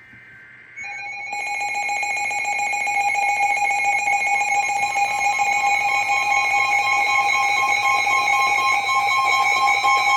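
Emergency Alert System tones that lead into a new tornado warning. First comes a short burst of high warbling data tones. About a second in, a loud, steady alert tone of several pitches switches on and grows louder. Another steady tone joins about four seconds in.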